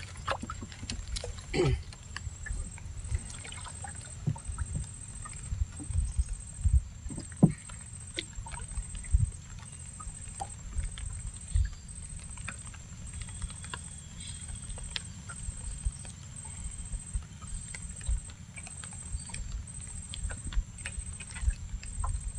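Small wooden boat on the water: irregular knocks and taps on the hull over a steady low rumble, with a faint high-pitched tone throughout.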